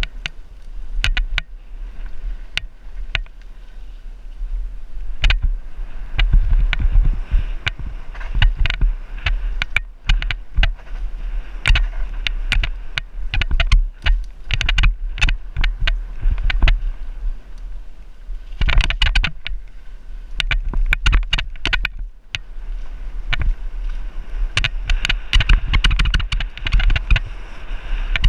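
Downhill mountain bike descending a rough dirt trail, heard from a camera mounted on the rider: a steady wind and tyre rumble with frequent sharp clicks and rattles from the bike jolting over bumps, busiest in two long stretches separated by a brief quieter moment.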